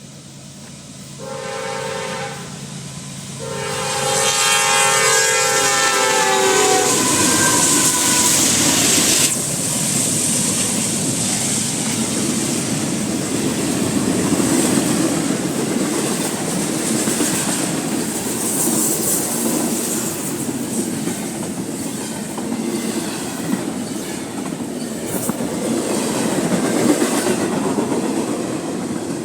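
CSX freight locomotive's air horn sounding a short blast and then a longer one, its chord dropping in pitch at the end of the second blast as the locomotive passes. The train then rolls by, its wheels clattering steadily over the rail joints.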